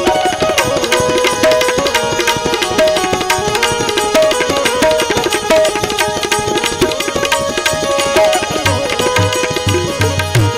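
Devotional bhajan music: a harmonium plays a held, stepping melody over a fast, steady tabla rhythm. Deep bass drum strokes join about three-quarters of the way through.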